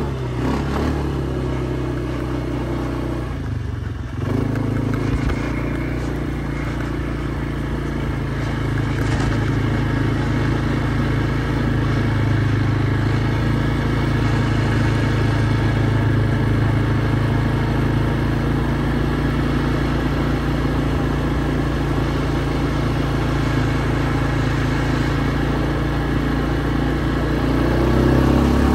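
Kymco MXU 300 ATV's single-cylinder four-stroke engine running while the quad is ridden. The engine eases off briefly about four seconds in, then pulls steadily, and its note rises near the end.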